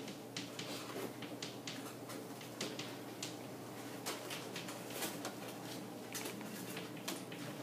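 Chalk writing on a chalkboard: irregular short taps and scrapes over a steady low hum.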